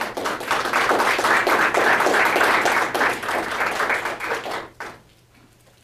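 Audience applauding. The clapping starts at once, holds for about four seconds, then dies away with a few last claps.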